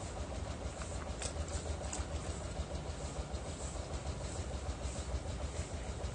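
A steady low rumble that wavers in loudness, with a faint hiss above it: wind on the microphone.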